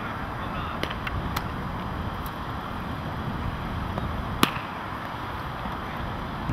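Steady low outdoor rumble, with a few faint clicks and one sharp pop about four and a half seconds in as the pitched baseball reaches home plate.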